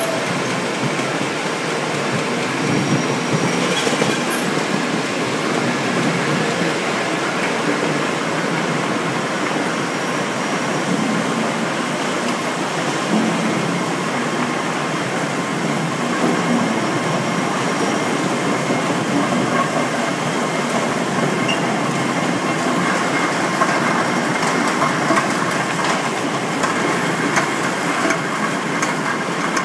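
Cucumber packing-line machinery running: conveyors and spinning steel sizing rollers make a steady mechanical rattle and clatter as cucumbers ride along the line.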